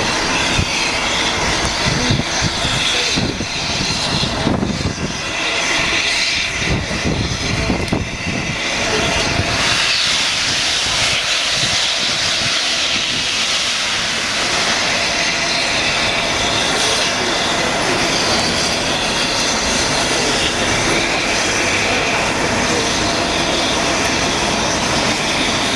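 Steam locomotive 60163 Tornado, a three-cylinder LNER Peppercorn A1 Pacific, hissing loudly as steam blows from its open cylinder drain cocks while it moves slowly. Low irregular rumbling runs under the hiss for the first several seconds, then the hiss carries on steady.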